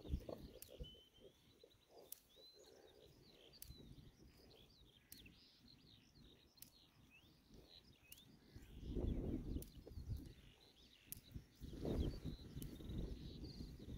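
Small birds chirping and twittering in the background. Bursts of low rumble come in about two-thirds through and again near the end, louder than the birdsong.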